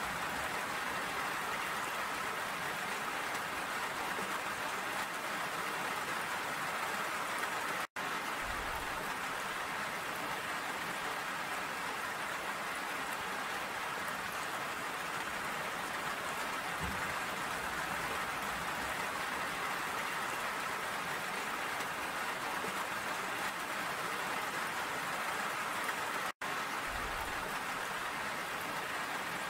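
Steady rainfall: an even hiss of rain falling on surfaces. Twice it drops out to silence for a split second.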